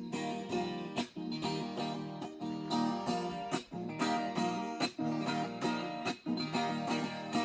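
Viola caipira, the Brazilian ten-string folk guitar, playing an instrumental passage of plucked and strummed chords in a steady rhythm, with no singing.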